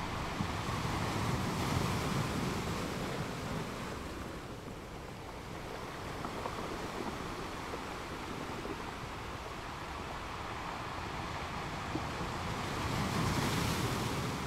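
Waves crashing on a rocky beach: a steady wash of surf that swells about two seconds in and again near the end.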